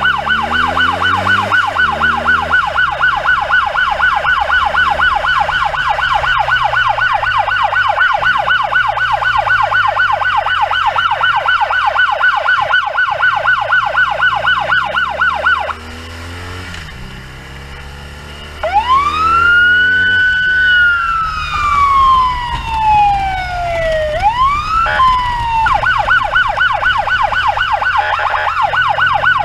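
Ambulance siren on a rapid yelp, which cuts out about halfway through; after a brief quieter lull a single slow wail rises and falls, then the fast yelp starts again. Engine and traffic rumble runs underneath.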